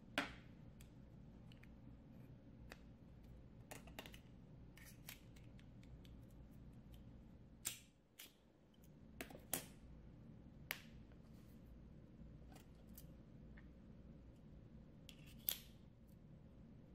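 Scattered sharp clicks and taps from the parts of an IMCO petrol lighter being handled and fitted together, about a dozen in all, over a faint steady hum. The loudest click comes just after the start, with others bunched around a third and halfway through and one more near the end.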